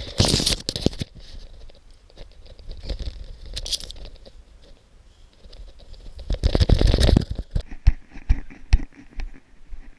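Dry grass rustling and crunching underfoot as someone walks quickly through a tall dead pasture, with three louder bursts of brushing. Near the end come a run of sharp separate crunches.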